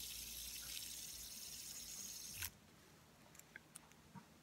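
Red-and-black tri-arm fidget spinner whirring on its centre bearing with a steady hiss, then stopped suddenly by a finger about two and a half seconds in; a few faint ticks follow.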